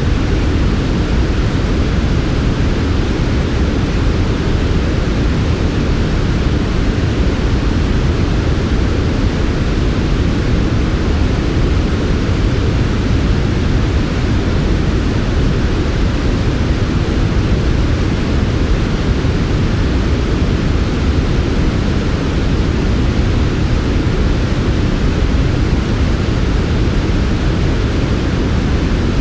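Steady, smooth synthetic white noise for sleep. It is an even hiss with most of its weight in the low end and no change or interruption.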